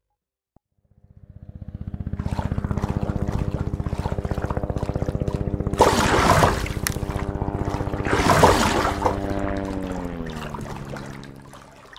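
Tandem-rotor CH-47 Chinook helicopter fading in, its fast rotor chop and engine tones steady. Two rushing surges like water spray come in the middle. Near the end the pitch slides down and the sound fades away as the helicopter moves off.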